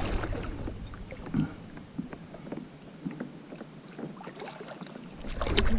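Scattered light knocks and handling sounds against a kayak's hull, with a small cluster of clicks near the end.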